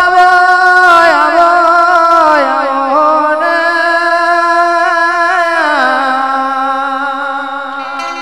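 Gujarati devotional folk song to Meldi Maa (a regadi): a long held, slightly wavering melodic note that steps down in pitch about six seconds in, over low beats that drop out after about two and a half seconds.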